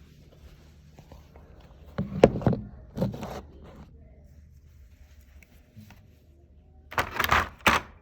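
Objects being handled and set down during wiring work: clatter and scraping in three short bursts, about two seconds in, a second later, and near the end.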